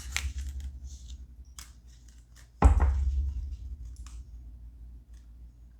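Tarot cards being handled: a few short clicks and rustles, then one loud thump about two and a half seconds in, as the deck or a card comes down on the table.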